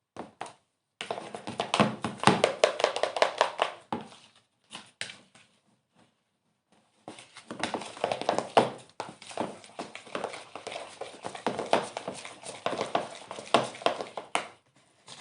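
Slime mixture of glue, shaving foam and food colouring being stirred: rapid wet clicking and squelching in two spells, the first from about a second in and the second from about seven seconds in until near the end.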